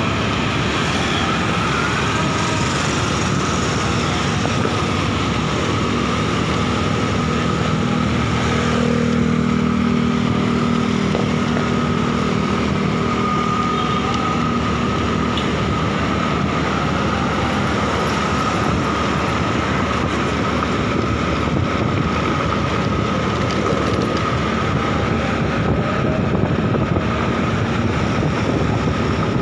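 Wind rushing over the microphone together with a motorcycle's engine and road noise while riding along in traffic, steady throughout. A deeper engine tone comes in for a few seconds around nine seconds in.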